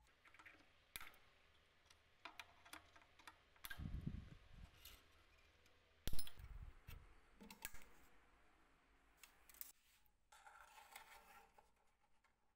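Handling and tool noises at a workbench: scattered sharp clicks and small taps, a dull thud about four seconds in, a louder knock about six seconds in, and a short stretch of rubbing or scraping near the end.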